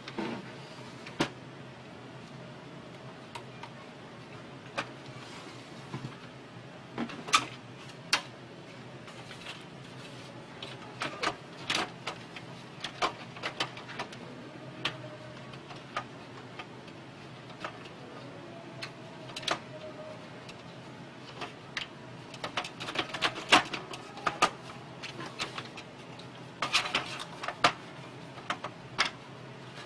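Irregular clicks, taps and knocks of hard plastic and small metal parts being handled while an inkjet printer is worked on, coming in clusters, over a faint steady hum.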